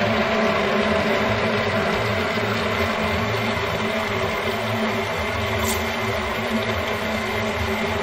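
Water running steadily from a kitchen tap into the sink, a constant rushing stream with a low hum under it.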